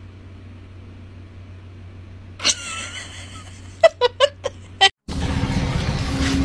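Prairie dog squealing once, then giving four short sharp chirps while its belly is rubbed. From about five seconds in there is a louder steady noisy background with a low hum.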